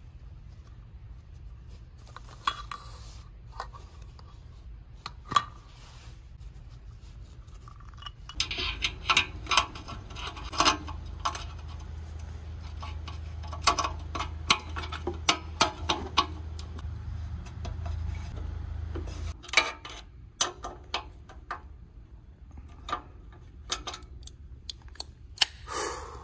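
Sharp metallic clinks and rattles, scattered at first and dense in the middle. From about 8 seconds in, a steady low hum runs under them for about 11 seconds, then stops.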